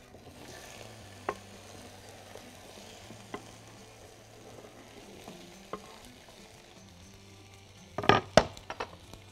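Onion wedges and sweet peppers sizzling in olive oil on a hot pan, with a few light clicks, then a quick run of loud knocks near the end.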